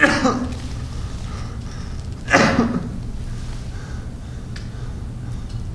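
A performer's wordless vocal cries, each one short and falling in pitch: one right at the start and another a little over two seconds in. A low steady hum runs underneath.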